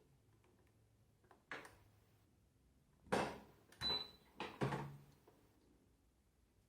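A Midea 14-place-setting dishwasher making the irregular knocking noise that is thought to be a fault: four sharp clunks, one about a second and a half in and three close together in the middle.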